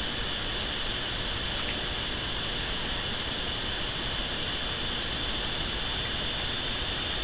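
Steady hiss with a faint, steady high whine running through it.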